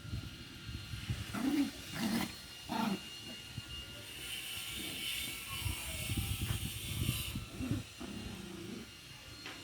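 A small dog vocalising, with a few short calls between about one and a half and three seconds in.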